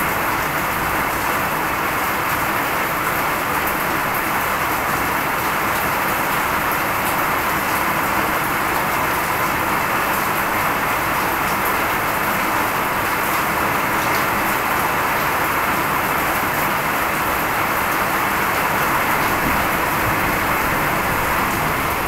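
Steady rain falling on water: an even, unbroken hiss.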